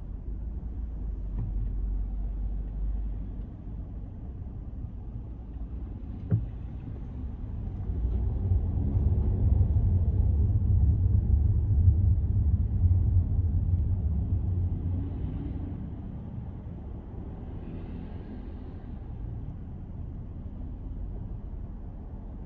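Car driving: a steady low road rumble that swells louder for several seconds from about eight seconds in, with one sharp knock about six seconds in.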